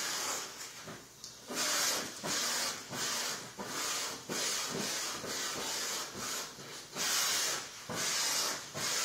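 Vacuum cleaner running, its suction hiss swelling and dropping about once a second as the hose wand is stroked over a long-haired cat's fur.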